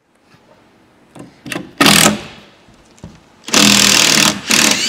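Cordless drill running in short bursts as it drives screws out of a plywood crate's side panels: a couple of brief blips, a burst near two seconds, then two longer runs in the second half.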